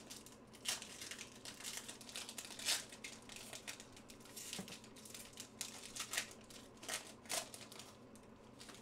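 Foil wrapper of a 2021 Chronicles Draft Picks trading-card pack being torn open and crinkled by hand: an irregular run of sharp crackles, the loudest nearly three seconds in.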